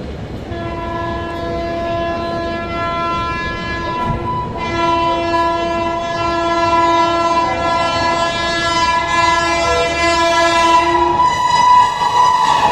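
Indian Railways locomotive horn sounding one long continuous blast, starting about half a second in and growing louder toward the end, over the rumble of the oncoming train.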